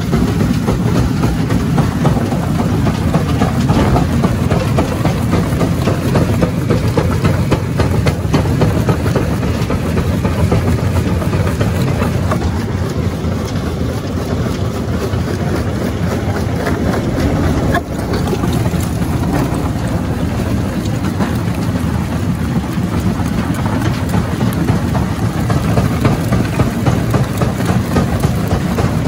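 Jaw rock crusher running under load: a steady heavy machine din, with many sharp cracks and knocks of stone breaking and grinding between the jaws.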